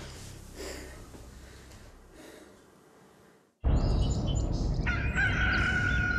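Rooster crowing one long call near the end, over outdoor morning ambience with small birds chirping. The ambience cuts in suddenly about three and a half seconds in, after a quiet stretch that fades almost to silence.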